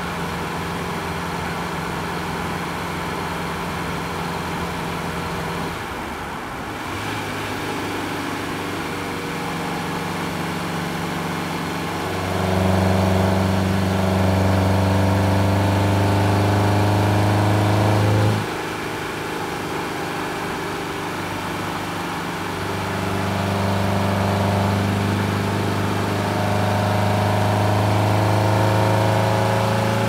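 2006 Fiat Grande Punto 1.4's four-cylinder petrol engine, heard from inside the cabin while driving. It runs at a steady drone at first, then pulls under load and grows louder about twelve seconds in, its pitch slowly climbing. It drops back sharply as the throttle is lifted, then pulls again with rising pitch near the end.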